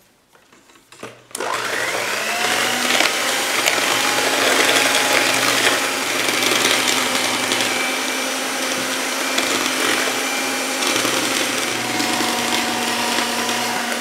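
SilverCrest electric hand mixer switched on about a second in, its motor whine rising as it spins up, then running steadily as the beaters mix flour into cake batter.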